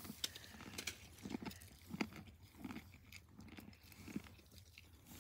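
A donkey chewing a mouthful of corn from a hand, with faint crunches of the kernels coming about every half second.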